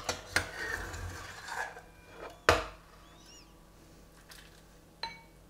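Metal ladle scooping mushroom broth from a stainless steel saucepan, scraping and clinking against the pan, with one sharp clink about two and a half seconds in and a lighter one near the end.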